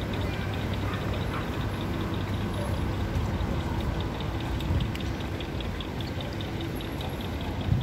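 Busy city street ambience: a steady hum of traffic, with a rapid, even ticking running through it.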